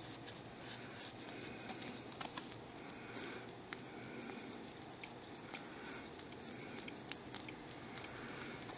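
Faint rubbing of fingers squeezing and turning a ball of polymer clay, with a few soft clicks scattered through, over low room hiss.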